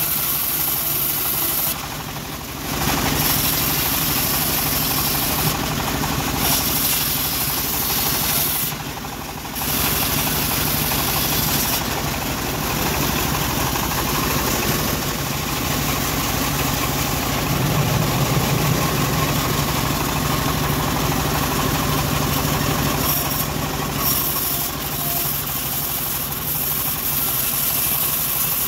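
Homemade band sawmill running steadily as its blade rips lengthwise through a teak plank. The sound drops away briefly twice, early and about a third of the way in.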